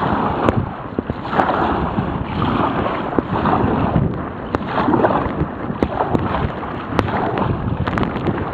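Water splashing and sloshing around a sea kayak, with wind buffeting a waterproof camera's microphone in a gale. The noise swells and eases about once a second, with many short sharp splashes and knocks.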